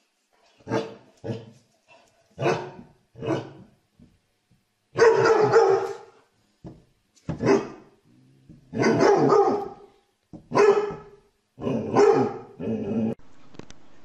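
A dog barking in a series of about ten barks: four short single barks first, then longer, drawn-out bursts with short pauses between.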